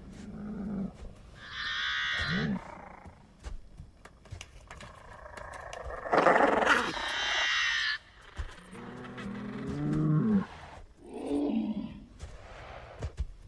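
Dinosaur roars and calls from a film's sound-effects track: a call about two seconds in, a long loud roar in the middle, then lower wavering calls near the end, over scattered thumps and clicks.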